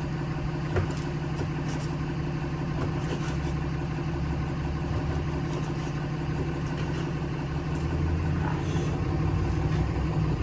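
An engine idling steadily with a low, even hum, with a single light click a little under a second in.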